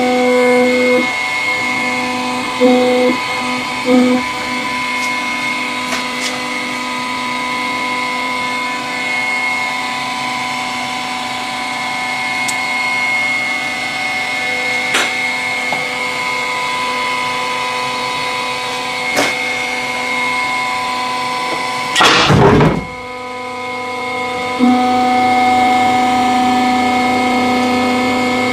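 Hydraulic press's electric motor and pump humming steadily, its lower tone swelling and fading as the load changes, with a few faint sharp clicks and one brief loud rushing burst about three-quarters of the way through.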